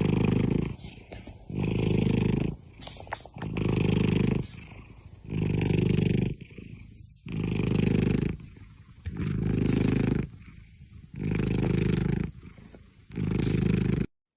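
Cat purring loudly close to the microphone, in eight low swells about two seconds apart with quieter stretches between; it cuts off suddenly near the end.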